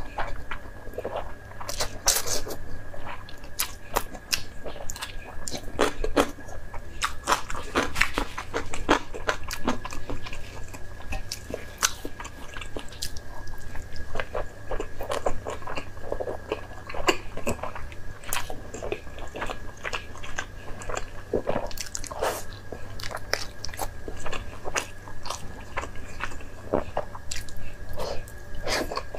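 Close-up eating sounds: noodles slurped and chewed, then a soft steamed dumpling bitten and chewed, a dense irregular run of wet smacks and clicks.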